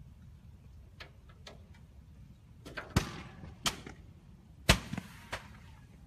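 A burning van giving off sharp pops and bangs over a low, steady rumble. The two loudest bangs, about three and nearly five seconds in, each leave a short echoing tail.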